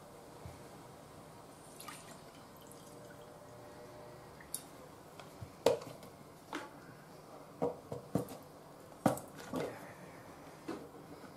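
Plum juice trickling and dripping from a paper carton into a small drinking glass, with several sharp clicks and knocks in the second half as the carton and glass are handled.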